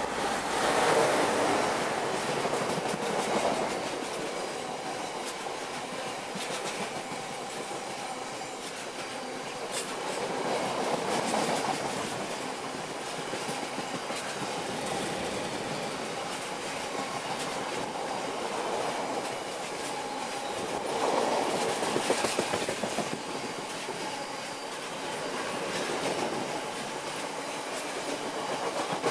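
Freight train passing close by: a Class 60 diesel locomotive at the start, then a long rake of bogie oil tank wagons. The wheels rumble steadily and click over rail joints, with the sound swelling several times as the wagons go by.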